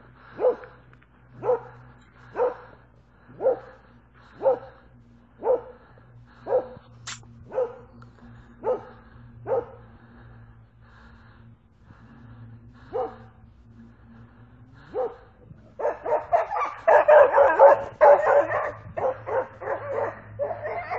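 A dog barking steadily, about one bark a second, then a quick flurry of overlapping barks and yelps near the end.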